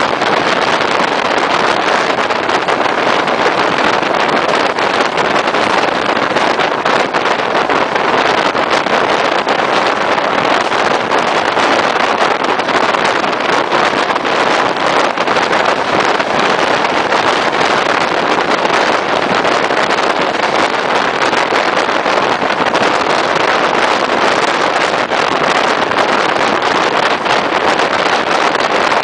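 Passenger train running at speed, heard from a microphone held out of an open carriage window: a steady rush of wind over the microphone mixed with the running noise of the carriage on the rails, with many faint clicks.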